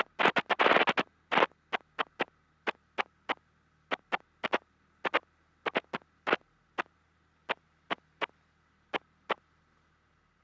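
Aircraft headset intercom crackling: a string of short, irregular clicks of static, about two to three a second, denser in the first second, over a faint low hum.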